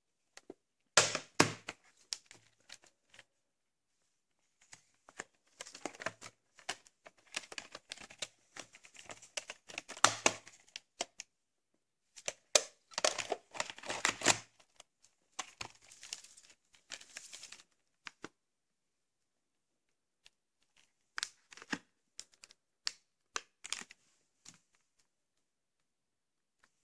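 A VHS cassette and its hard plastic clamshell case being handled: clattering clicks, knocks and scraping in several bursts separated by short pauses.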